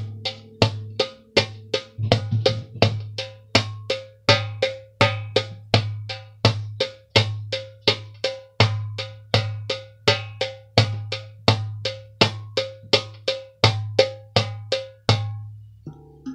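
Darbuka drum played in a steady rhythm: deep low strokes mixed with sharp, bright rim strikes, about two to three strokes a second, stopping about a second before the end.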